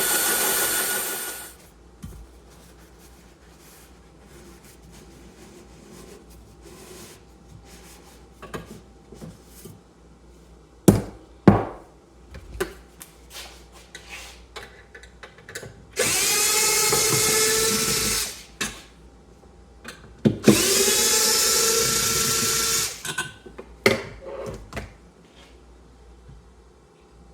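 Cordless drill spinning a cylinder hone in a scored small-engine cylinder, smoothing the bore. It runs in short bursts: one stops about a second and a half in, and two more of about two seconds each come later, with two sharp knocks and light clatter between them.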